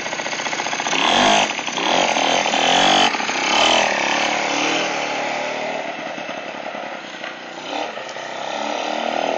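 Yamaha Beluga 80cc engine mounted on a bicycle, running and revving up several times in the first few seconds, easing back, then picking up again near the end.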